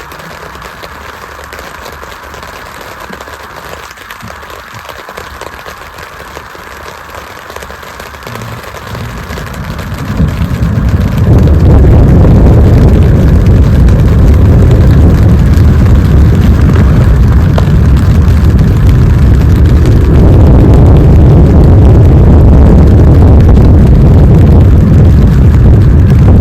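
Storm noise of rain and wind: a steady hiss that swells about ten seconds in into a loud, deep, constant roar.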